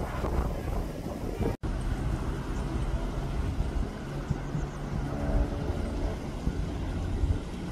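Wind rumbling on the microphone over the steady drone of a distant engine, a hum that comes through more clearly after about two seconds. The sound cuts out for an instant about a second and a half in.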